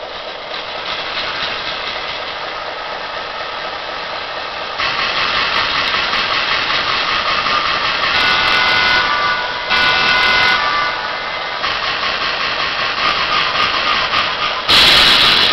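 The MRC DCC sound decoder in an HO-scale GL-8 model locomotive plays a simulated GM switcher diesel engine through its small speaker, stepping up louder about five seconds in. Two horn-like tones sound around eight and ten seconds in, and a short, loud hiss comes near the end.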